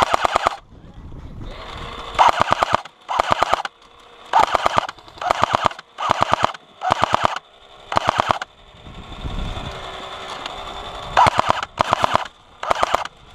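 Electric airsoft gun firing about ten short bursts of BBs, each a rapid string of clicks lasting about half a second, as covering fire. Its battery is running low, so it fires as a slow putter rather than a spray.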